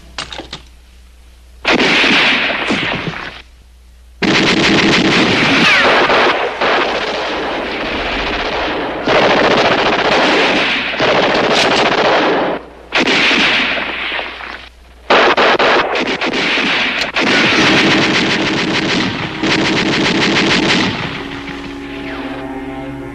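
Automatic gunfire in long bursts of several seconds each, broken by short pauses, with a few single shots at the start: a staged TV-drama firefight. Music comes back in faintly near the end.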